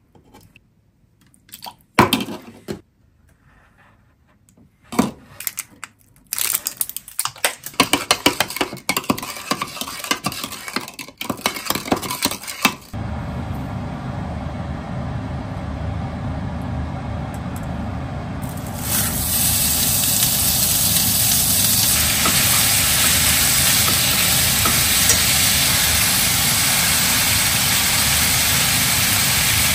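A spoon clinks against a plastic measuring cup as seasonings go in, then stirs them with rapid clicking. About 13 seconds in a steady low rushing noise starts, and from about 19 seconds sliced pork sizzles in a frying pan, louder than anything before it.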